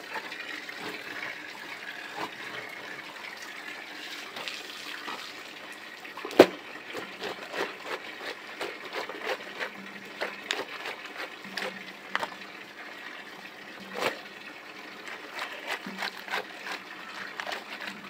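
Water running steadily from an open pipe spout onto a stone washing slab, with wet clothes being scrubbed and slapped on the stone by hand. From about six seconds in come irregular slaps and rubbing strokes, the sharpest slap at about six seconds and another near fourteen.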